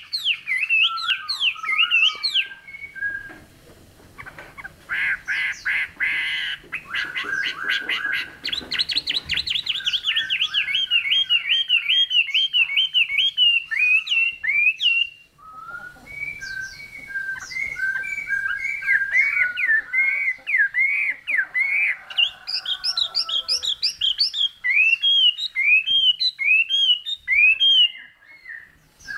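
Chinese hwamei (Garrulax canorus) singing a long, varied song of loud whistled phrases, rapid runs of repeated notes and slurred up-and-down trills, with a short pause about halfway through.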